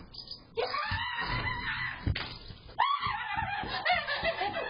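A girl screaming in two long, high, wavering screams, the second starting about three seconds in, with a short knock between them.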